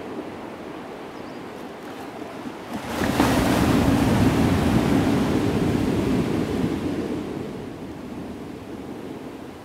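Strong wind blowing across an open sand beach and buffeting the microphone, with a gust swelling about three seconds in and easing off after about seven seconds.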